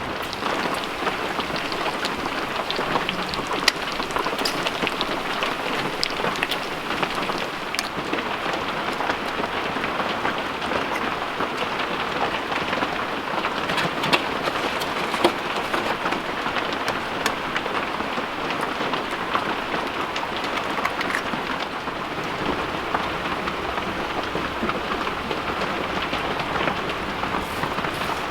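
Steady rainfall, an even hiss with many scattered drop ticks.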